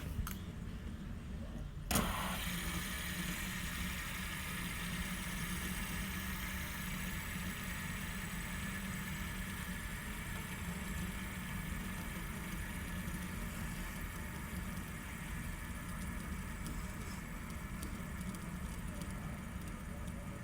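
Fidget spinner flicked into motion with a sharp click about two seconds in, then spinning with a steady whirr from its ball bearing. A steady low rumble runs underneath throughout.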